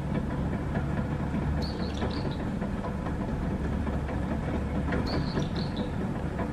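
Hakone Tozan Cable Car funicular car climbing toward the station, a steady low rumble of the car and its haulage cable running over the track rollers. Brief high chirps sound twice, about two seconds in and about five seconds in.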